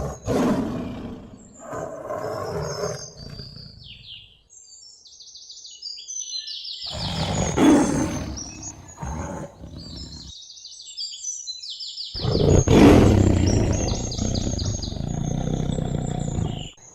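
Tiger roaring in three long bouts, with birds chirping in the background between and over the roars.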